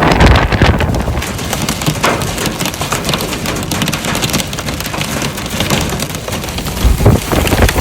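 Heavy rain falling, a dense steady patter, with low gusts of wind buffeting the microphone near the start and again about seven seconds in.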